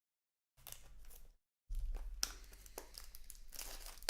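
Trading card pack wrapper crinkling and tearing as it is opened by hand, with sharp crackles. It starts about half a second in, stops briefly, then carries on steadily.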